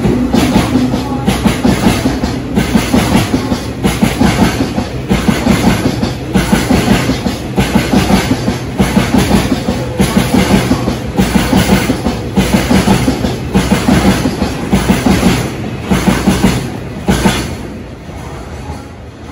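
Freight train of oil tank wagons rolling past, wheels clacking over the rail joints in repeated groups of clicks as each wagon goes by. The clatter fades near the end as the train moves away.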